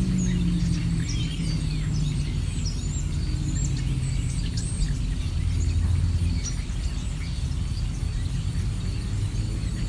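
Several small birds chirping and whistling in short high calls over a steady low rumble, which swells for a second or so around the middle.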